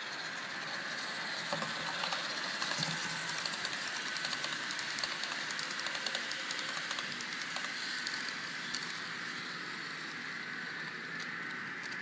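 Model train rolling past on the layout's track: a quick patter of small clicks from its wheels over the rail joints, over a steady hiss. The clicking is loudest between about one and a half and nine seconds in, then thins out.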